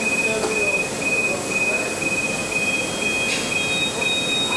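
Aircraft factory floor machinery noise: a steady mechanical din with a high-pitched whine that drops out briefly about twice a second, and a second, higher tone that comes in near the end.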